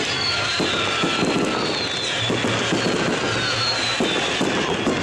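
Fireworks display: aerial shells bursting, with about five sharp bangs at irregular intervals over continuous crackling.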